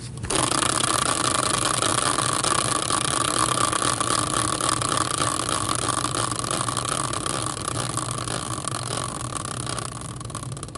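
Hand-spun prize wheel made from a caster wheel, its pointer ticking against the red dividers so fast that the clicks run together into a steady rattling whir. It starts suddenly just after the start and slowly fades as the wheel coasts down.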